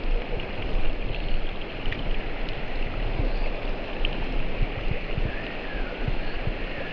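Fast-flowing rocky mountain stream rushing steadily.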